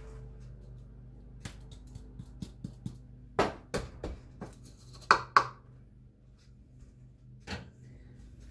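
Plastic funnel knocking and clinking against a glass mason jar as dry powdered soup mix is tapped through it: a string of light taps, with the loudest clinks about three and a half and five seconds in.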